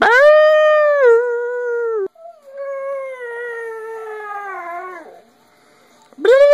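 Part-husky dog howling: two long howls, the second slowly sliding down in pitch, then a third howl starting near the end.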